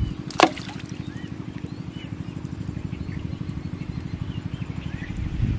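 A small engine running steadily with a fast, even thudding beat, with small birds chirping over it now and then. One sharp, loud sound stands out about half a second in.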